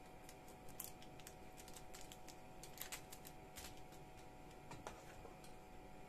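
Faint, scattered clicks and light scrapes of a metal spoon scooping thick millet porridge out of a stainless steel pot and dropping it onto baking paper.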